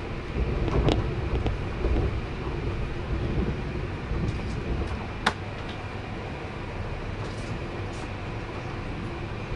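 Passenger train running, heard from inside the carriage: a steady low rumble, with a few knocks in the first two seconds and one sharp click about five seconds in.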